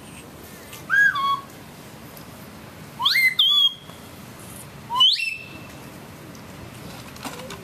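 Three short, loud whistled calls: the first steps down in pitch, the next two sweep sharply up and then hold.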